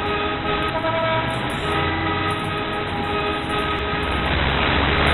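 Background music with sustained, held chords that shift every second or so.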